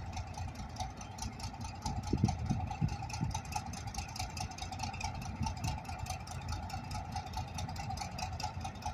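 Diesel locomotive engine idling, a steady low rumble with a constant mid-pitched hum, swelling briefly about two to three seconds in.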